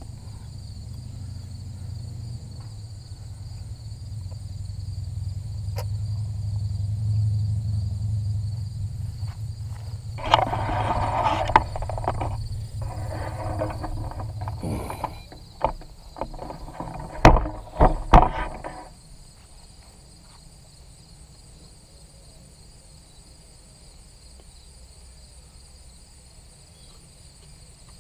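A low rumble that swells and then fades over about fifteen seconds, followed by rustling and a few sharp knocks as the camera is handled. A steady high insect buzz runs underneath.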